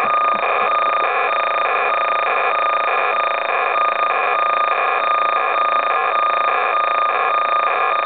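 Data tones from a 1980 Ohio Scientific home computer's program cassette, played through a Radio Shack CTR-102 cassette recorder's speaker. It is a loud, steady electronic whine of several high tones, with a faint pulsing about twice a second.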